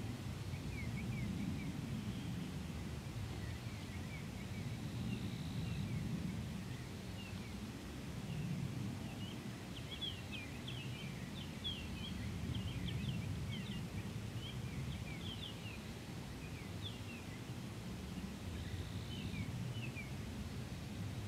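Outdoor ambience of small birds giving many short, quick chirps over a steady low rumble. The chirping grows busiest in the middle and thins out near the end.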